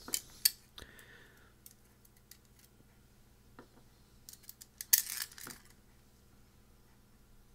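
Small metal screws and hardware clinking and clicking as they are taken out of an antenna kit's PCB board and handled. There are a few clicks near the start, and a short burst of clatter about five seconds in, the loudest moment.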